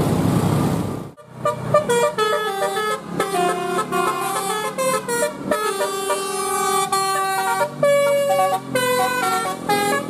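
Bus 'telolet' multi-tone horn playing a fast tune of clean stepped notes, starting after a brief drop-out about a second in.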